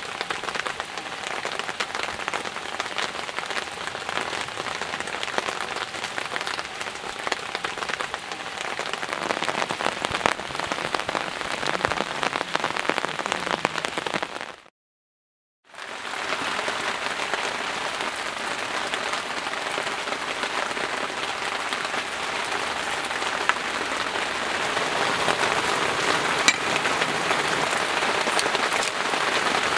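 Steady heavy rain falling on a surface, a dense hiss full of individual drop hits. The sound cuts out completely for about a second midway, then the rain resumes.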